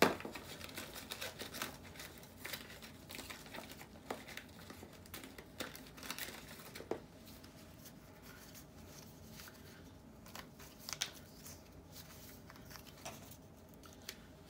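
Small paper cut-outs being handled and sorted by hand, with soft rustling and crinkling of paper and scattered light taps and clicks on the desk. A single sharp click right at the start is the loudest sound.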